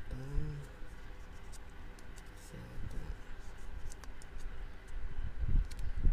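PTFE tape being wrapped around the threads of an oil drain plug: light clicks and scratching over a low rumble.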